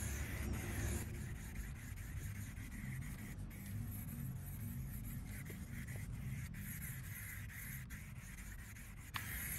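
Aerosol can of Rust-Oleum hammered spray paint hissing on and off as it is sprayed, over a low steady rumble.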